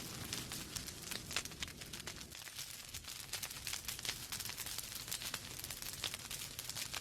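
Wood fire in a fireplace, burning logs crackling with many small irregular pops over a soft low rumble.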